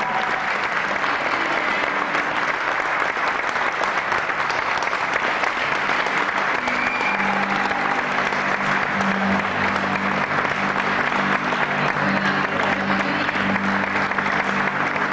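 Audience applauding steadily. About halfway through, a band comes in underneath with held low notes.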